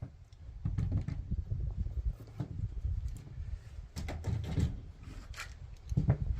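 Scattered clicks and knocks of firearms and gear being handled on a range bench, over a steady low rumble.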